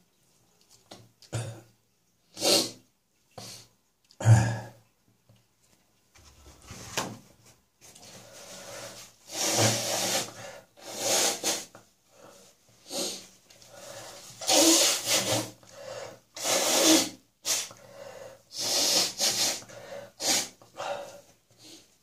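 A person coughing and clearing the throat of catarrh left behind by a chest infection that is clearing up. The sounds come as separate bursts: a few short ones at first, then longer, noisier ones of about a second each.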